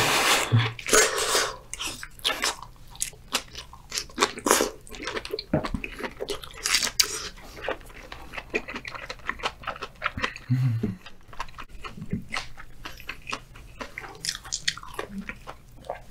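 A person biting into and chewing a giant oyster topped with flying fish roe: one loud bite at the start, then wet chewing with many small crunchy clicks throughout.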